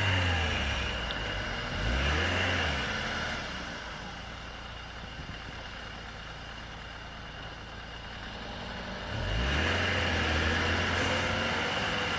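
Car engine revving up briefly twice, dropping back to a low run, then revving up again about nine seconds in and holding, as the car works to pull free of a muddy rut after stalling.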